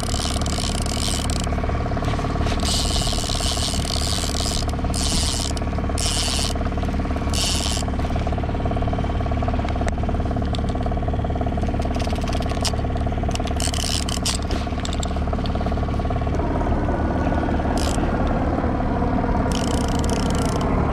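Okuma Magda Pro line-counter trolling reel being cranked, its gears and clicker ratcheting rapidly. Under it the boat's outboard motor drones steadily.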